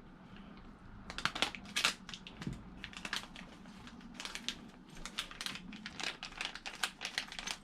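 Hands handling small parts for fitting a plastic propeller to an RC boat: irregular light clicks, taps and crinkling rustles, starting about a second in.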